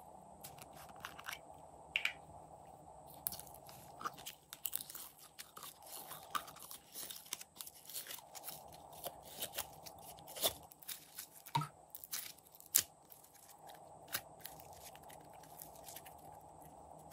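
Blue slime squeezed and pulled out of a small plastic bottle: an irregular run of sticky clicks, crackles and pops, thickest in the middle and thinning out near the end.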